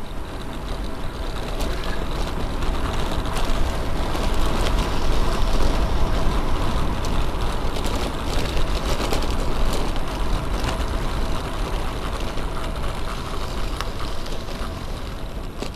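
Road bike rolling fast on coarse chip-seal asphalt: a steady rush of wind over the bike-mounted microphone and tyre rumble, swelling over the first few seconds and easing later, with scattered light ticks and rattles from bumps in the surface.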